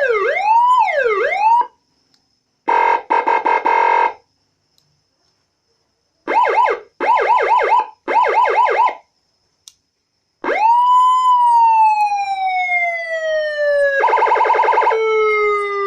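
SPC12T 12-tone electronic siren stepping through different tones with short pauses between them: a fast rising-and-falling yelp, a rapidly pulsing steady tone, three short bursts of quick rising chirps, then a long tone that rises and slowly falls in pitch, with a rapid pulsing tone laid over it near the end.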